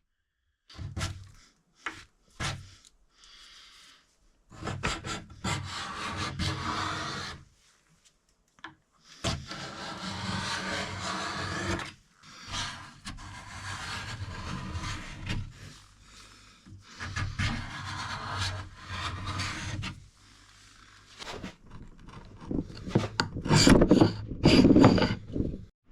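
Hand rubbing on the wood of a dresser, abrasive strokes typical of sanding, in stretches of a few seconds with short pauses between them, loudest near the end.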